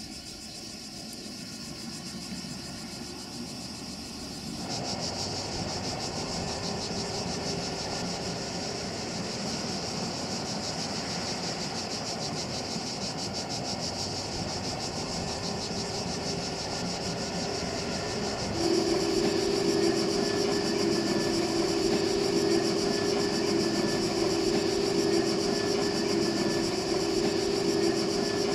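Distant steam train running: SŽ 33-037, a German class 52 2-10-0 steam locomotive, working a train of passenger coaches, with a steady high-pitched insect buzz behind it. The sound changes abruptly twice, at about 5 seconds and about 19 seconds in, and is louder in the last part, where a steady low drone comes in.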